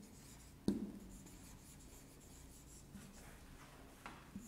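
Marker pen writing on a whiteboard: quiet strokes with one sharp tap of the tip against the board a little under a second in.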